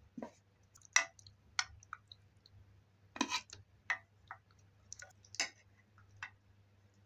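Serving utensils tapping and scraping on metal dishes and a pot: about a dozen irregular sharp clicks, the loudest about a second in.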